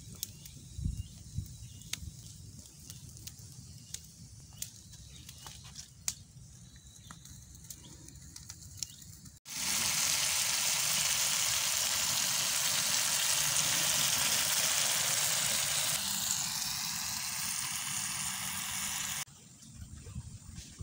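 Charcoal embers crackling with scattered sharp pops under a whole chicken roasting on a wooden spit. About nine seconds in it switches abruptly to a loud, steady sizzle of chili sambal frying in oil in a pan, which cuts off suddenly after about ten seconds.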